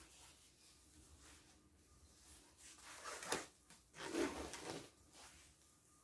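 Thin foam packing sheet being handled and unfolded, rustling softly, loudest about three seconds in and again a second later.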